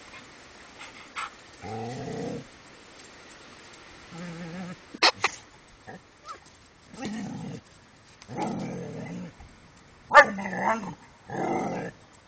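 Blue heeler dog growling in short bouts, about six times, with the loudest and highest-pitched outburst about ten seconds in. Two sharp clicks come close together about five seconds in.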